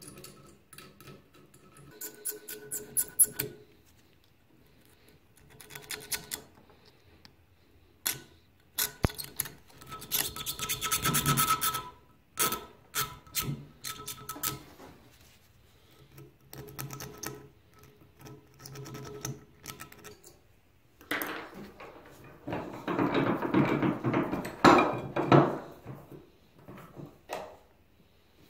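A thin steel pick scraping and picking rust and dirt out of the slotted screw heads on a rusty reel-mower part held in a bench vise. It comes in short bouts of scratching with small clicks and knocks between, and a longer, louder bout of scraping about three-quarters of the way through.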